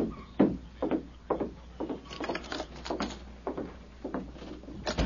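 Radio sound-effect footsteps on wooden boards, about two steps a second, with a sharper click just before the end.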